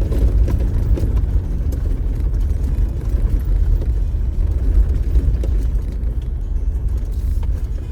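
Off-road vehicle driving over a bumpy dirt trail: a steady low rumble from the engine and tyres, with scattered knocks and rattles as it rolls over dips and potholes.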